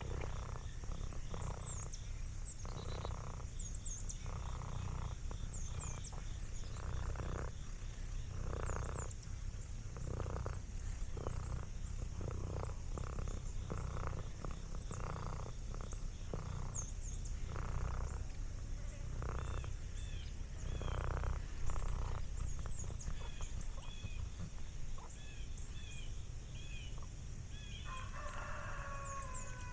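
Domestic cat purring steadily, swelling and fading in a slow breathing rhythm, with small birds chirping in short high notes over it.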